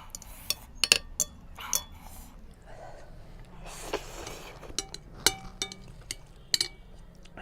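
Eating utensils clinking against a bowl while noodles are eaten: a string of sharp, irregularly spaced clinks, some with a brief ring.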